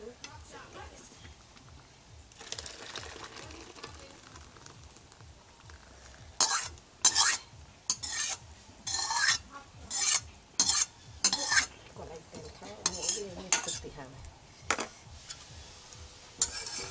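Flat metal spatula scraping the inside of a metal cooking pan in a quick series of short, sharp strokes, starting about six seconds in, to clear out the last of the cooked kolai dal.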